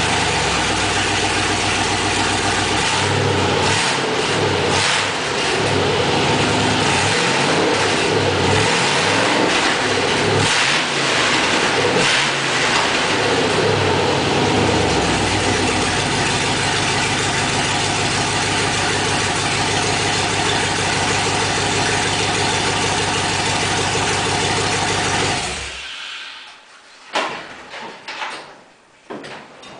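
Chevrolet 6.0-litre LQ9 V8 in a 1948 Diamond T pickup, running just after its first start-up following an engine swap and rewiring. It is revved up and down unevenly for the first quarter-minute, then idles steadily, then shuts off abruptly about 26 seconds in. A few short knocks follow.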